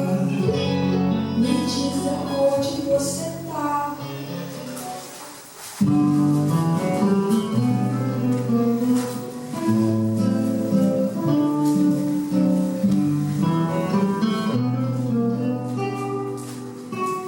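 Instrumental music led by guitar. It dies away about four to six seconds in, and a new guitar passage starts abruptly about six seconds in.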